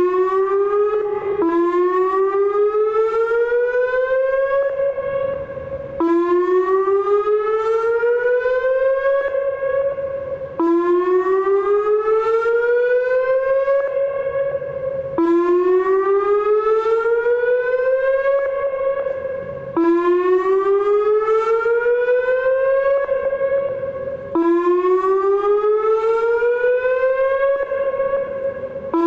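Whelen WPS-2809 electronic outdoor warning siren switching on abruptly and sounding its 'whoop' test signal. Each cycle is a rising tone that climbs for about three seconds, levels off briefly, then drops and starts again, about six times.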